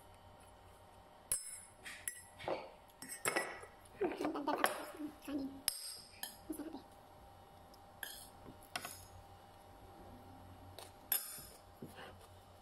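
A metal spoon clinking and scraping against a ceramic plate while scooping up food, in scattered sharp strokes, busiest through the first half and with a few more near the end.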